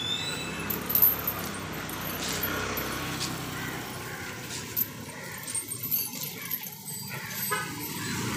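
Heavy iron chains on an elephant's legs clinking and rattling now and then as they are handled. There is a low rumble under it in the first half.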